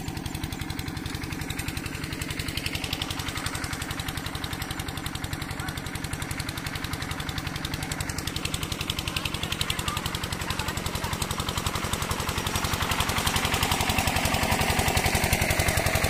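Bharat 8 hp single-cylinder diesel engine of a water pump set running steadily with a fast, even beat while pumping irrigation water. It grows louder in the last few seconds, joined by the rush of water gushing from the pump's outlet.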